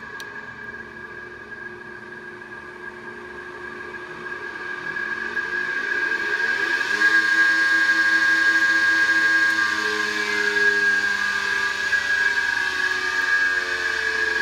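Electric motor started through a soft starter: a click as the start is confirmed, then the motor's hum and whine build over several seconds with pitches sliding as it ramps up to full speed, running steadily and louder from about seven seconds in. A steady high whine sits throughout.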